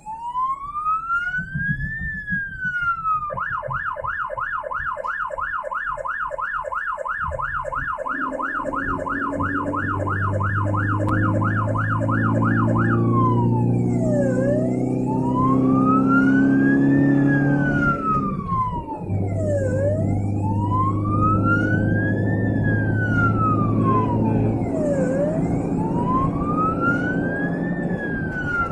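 Ambulance siren on a slow wail, rising and falling about every five seconds. About three seconds in it switches to a fast yelp of roughly four cycles a second for about ten seconds, then returns to the wail. The vehicle's engine hums underneath.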